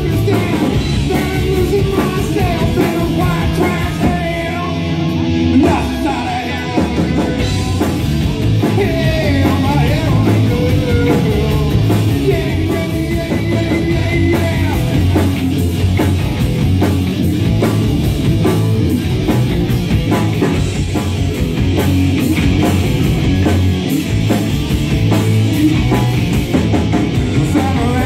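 Live rock band playing loud, with a singer's voice over the band.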